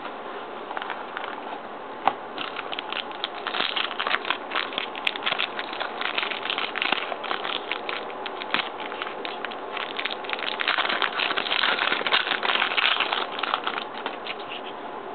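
A trading card pack wrapper crinkling and crackling as it is handled and torn open, the crinkling growing busier and louder partway through.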